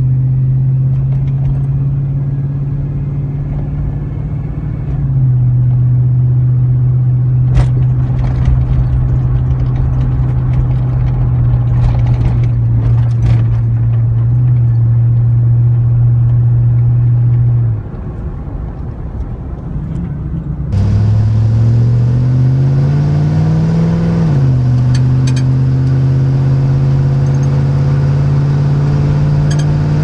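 The 5.3L LM7 V8 of a 1999 Chevy Silverado through a Cherry Bomb Salute straight-through muffler: a steady exhaust drone heard inside the cab while driving, getting louder about five seconds in and dropping away briefly after about eighteen seconds. Then the same V8 through a Cherry Bomb Glasspack revs up for about three seconds, falls back and holds a steady drone.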